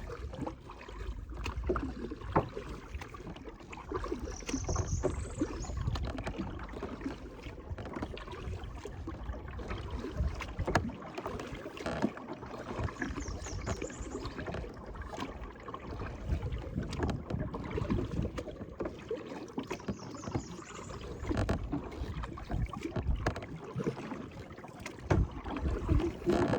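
Kayak paddles dipping and splashing in the water with irregular drips, over a low wind rumble on the microphone.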